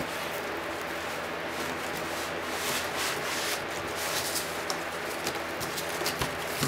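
Cardboard box flaps and foam packing being handled, with short rustles and scrapes from about two and a half seconds in, over the steady whoosh of a room fan.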